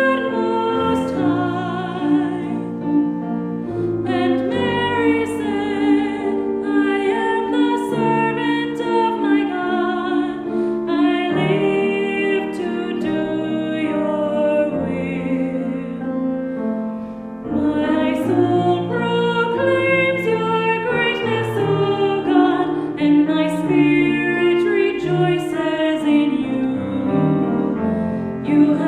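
Voices singing a hymn with piano accompaniment, with a short lull about 17 seconds in before the next phrase begins.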